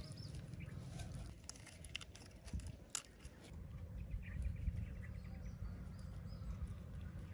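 Outdoor ambience: a low steady rumble, scattered small clicks and rustles from hands handling food, and faint bird chirps about four to six seconds in.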